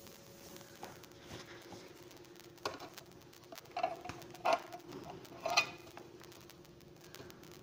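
A cloth wiping a whiteboard: four short rubbing strokes about a second apart, each with a brief squeak, over a faint steady hum.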